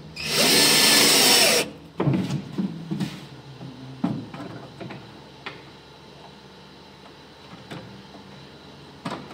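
Cordless drill driving a screw through a steel ball-bearing drawer slide into a panel, one loud burst of about a second and a half with the motor's pitch bending as the screw seats. It is followed by a quick run of knocks and clicks, then a few faint single clicks.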